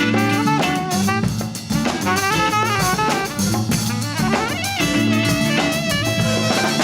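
Latin fusion band playing live: a drum kit keeps a busy, steady beat under a bass line and a wavering lead melody.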